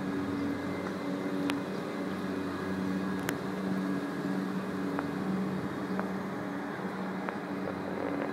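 Steady machine drone with a low hum that swells and fades every second or two, and a few faint sharp cracks scattered through it.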